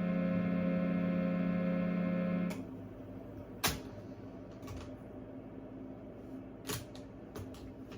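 A sustained droning chord is held steady, then cuts off suddenly about two and a half seconds in. After it come a few short clicks, two of them sharper than the rest.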